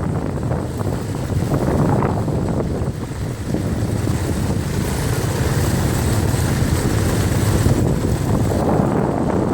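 ATV engine running during a ride, mixed with wind buffeting the microphone.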